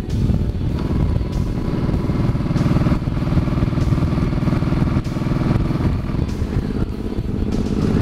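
Cruiser motorcycle engine running steadily at highway cruising speed, heard from the rider's own bike.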